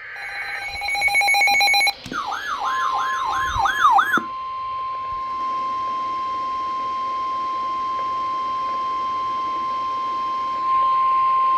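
Emergency Alert System alert tones for a severe thunderstorm warning. About two seconds of buzzy, rapidly pulsing electronic tones are followed by a warbling tone that swings up and down a few times a second. Underneath, from about two and a half seconds in, a single steady tone starts (the National Weather Service 1050 Hz warning alarm tone), and it holds unchanged on its own after the warble stops.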